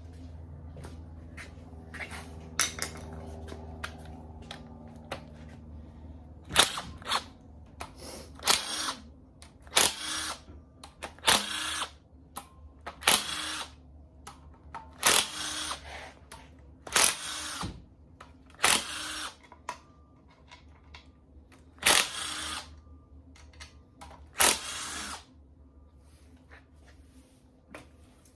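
A cordless power tool running in short bursts of about half a second, about a dozen times, as bolts are run out during engine teardown. A steady low hum sits under the first few seconds.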